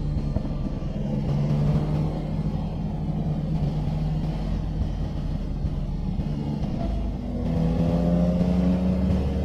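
Motorcycle engine running at steady revs, then pulling harder about seven and a half seconds in, its pitch rising over the last two seconds.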